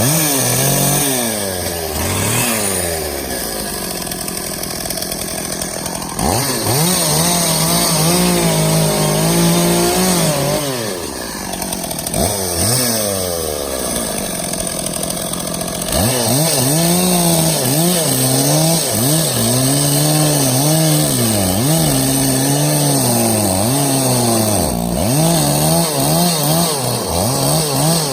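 Stihl 460 two-stroke chainsaw cutting oak limb wood. The engine pitch rises between cuts and sags under load in the wood. It settles lower for a few seconds about 8 to 11 seconds in, then picks up again in a long run of cuts from about 16 seconds on.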